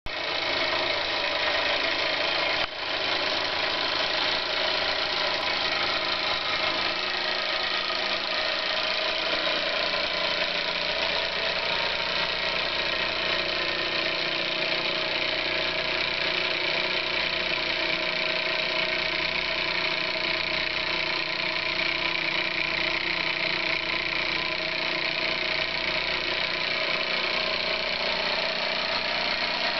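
Meccano MEC1 toy steam engine, made by Mamod, running steadily and driving a Meccano Ferris wheel through a string belt and pulleys: a continuous, even mechanical running noise.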